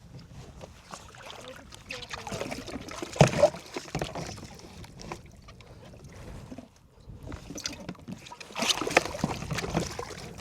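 Sounds of a kayak on open water: water splashing and sloshing with short knocks, louder in two spells, about two to four seconds in and again near the end.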